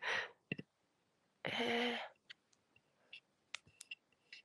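A brief breathy voice sound, then a short murmured vocal sound about a second and a half in. After it come faint, scattered light clicks, a handful spread over the last two seconds.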